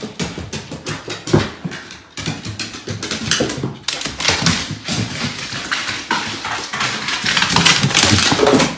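A dog's claws and paws clattering and tapping on hardwood stairs as it scrambles down them: a dense, irregular run of knocks and clicks, loudest near the end.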